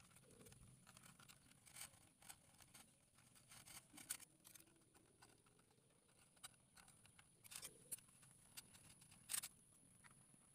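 Faint knocks, clicks and scrapes of cut cassava stems being handled and lifted off the plastic bed of a WPL C24 RC pickup truck, with the sharpest knocks about four seconds in and near the end.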